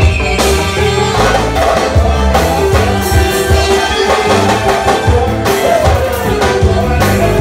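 Music with drums, a regular beat and a bass line under a melodic lead.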